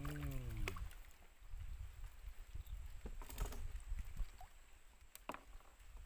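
Small boat on a river: a low rumble of water and wind with a few sharp clicks and knocks from fishing rods and gear being handled. A short falling hum, like a man's voice, in the first second.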